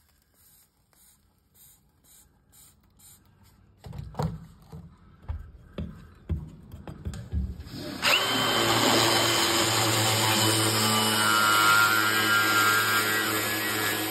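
A few knocks of the tool being handled and set against the tile, then about eight seconds in a Milwaukee M18 Fuel cordless angle grinder starts and runs steadily with a high whine, its dry diamond core bit grinding into porcelain tile.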